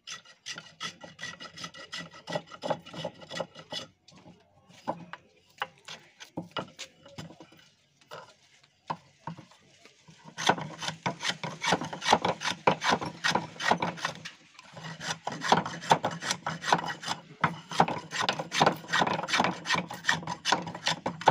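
Wooden hand plane shaving a wooden mallet handle: quick repeated scraping strokes of the blade on the wood, several a second. The strokes thin out and quieten between about four and ten seconds in, then come thick and louder again.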